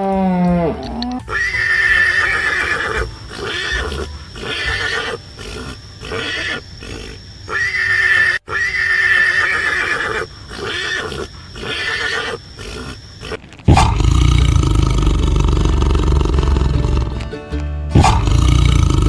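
A run of loud, shrill animal calls, one after another. About two-thirds of the way through they give way to deep lion roars.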